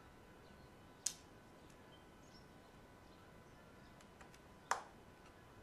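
Two sharp clicks, about three and a half seconds apart, with a few faint ticks between: a small precision screwdriver knocking against the plastic housing and screws of a steam iron as it is unscrewed.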